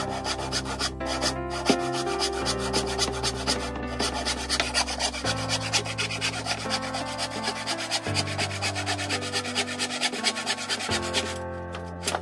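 Handsaw cutting through a 1x2 wooden board in quick, even back-and-forth strokes, under background music with held chords that change every few seconds.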